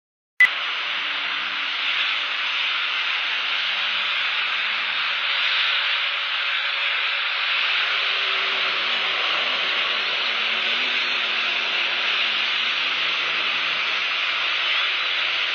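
Heavy rain falling steadily, an even hiss picked up by the eagle nest camera's microphone. It cuts in sharply with a click about half a second in.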